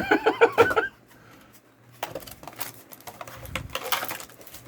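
Brief laughter, then about a second in a quick run of light clicks and rustles from Weiss Schwarz trading cards being handled and flicked through.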